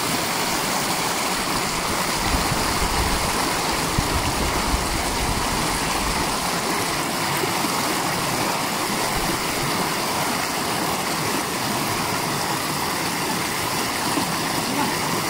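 Small mountain stream rushing and splashing over rocks, a steady, even rush, with some low rumbles in the first few seconds.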